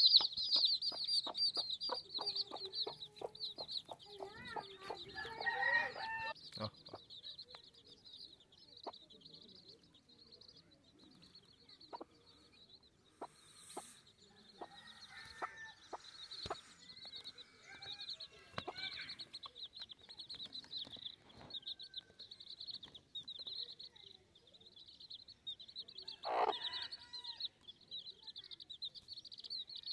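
Baby chicks peeping constantly in rapid, high cheeps while their mother hen clucks over them. The clucks come thick in the first several seconds, and one louder call comes near the end.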